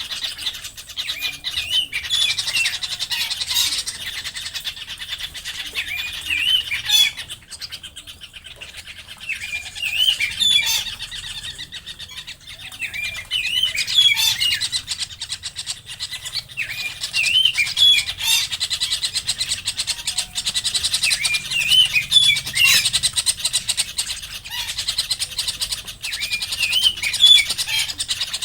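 Wild birds calling: short phrases of rising-and-falling chirps, repeated every few seconds, over a constant fast, high-pitched rattle.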